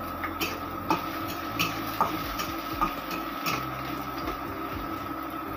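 A cooking utensil clinking and scraping against a stainless steel wok while chopped onion is stirred in oil: about seven sharp taps in the first three and a half seconds, fewer after, over a steady hum.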